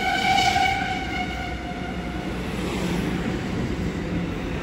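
Amtrak Pacific Surfliner bilevel passenger cars rolling past along the platform with a steady low rumble. A sustained high tone sounds over it at the start and fades out about two seconds in.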